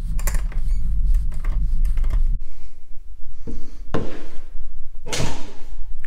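Rod and piston of a Case 1845C skid steer hydraulic cylinder being slid out of the steel barrel after the gland is unscrewed: a few metal clunks in the second half, then a longer scraping slide near the end.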